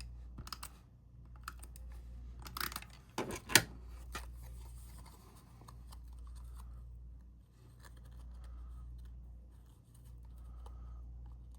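Cardstock pieces being handled and slotted together by hand: paper rustling and scraping with scattered light clicks, busiest around three seconds in with one sharp tap.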